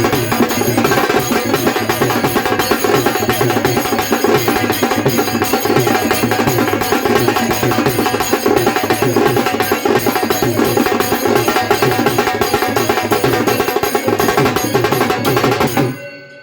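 Instrumental introduction to a Marathi devotional song: loud, fast, dense percussion with drums and a sharp clicking wood-block-like beat over other instruments, cutting off suddenly near the end.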